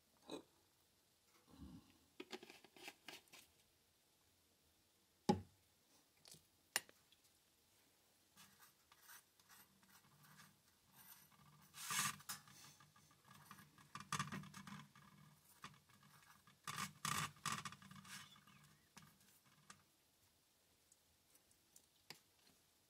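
Faint scraping and rubbing over a flatbread in a metal pan as it is worked by hand, with a few sharp clicks in the first seconds and louder scraping strokes in the middle stretch.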